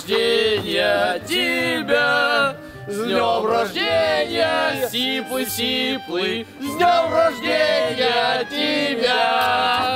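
A group of men singing a song together, several male voices in chorus.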